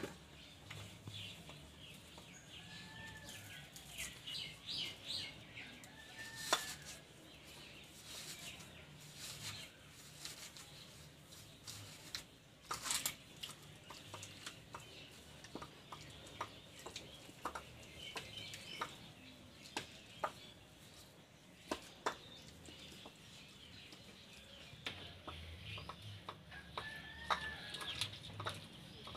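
Chickens clucking faintly with a few short calls, over scattered clicks and light scrapes of a hand mixing mustard-flower batter in a steel plate.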